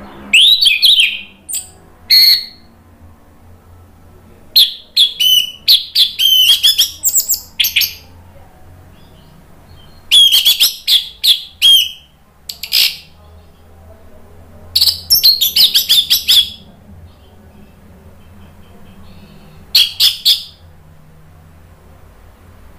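Orange-headed thrush singing loudly: rapid, varied whistled and warbled phrases in about five bouts, with pauses of a few seconds between them.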